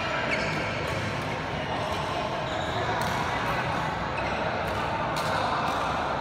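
Badminton play in a large, echoing sports hall: a few sharp racket hits on the shuttlecock, with players' footfalls on the court, over a steady background of voices.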